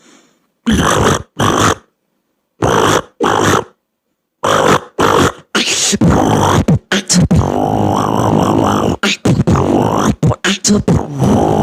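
A beatboxer imitating a frog's croaking with the mouth and voice. It starts as short croaks in pairs, and about halfway through becomes a quicker, near-continuous run of warbling croaks.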